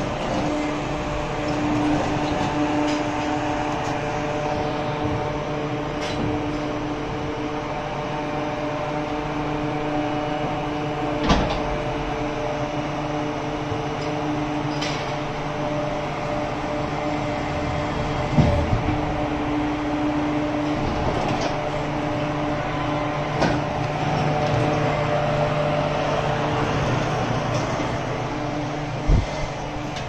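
Barn machinery running with a steady low hum, and a few sharp knocks scattered through.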